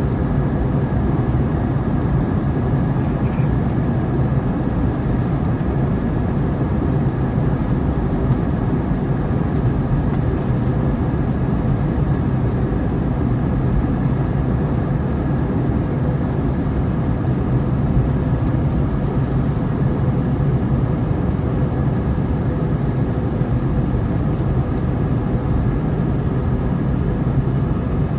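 Steady low rumble of an Airbus A321neo's jet engines on approach, with a few faint steady tones over it.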